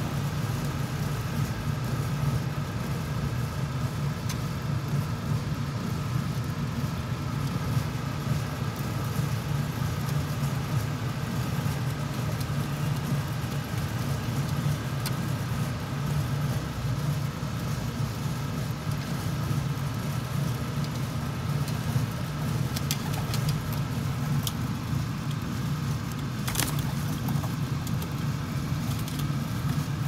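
Steady low mechanical hum of a rooftop HVAC unit running, with a few sharp clicks in the last several seconds.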